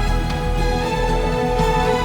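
Background music with sustained held notes.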